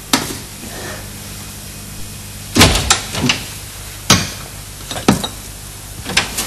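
A series of about seven sharp knocks and thumps at uneven spacing, the loudest cluster about two and a half to three seconds in.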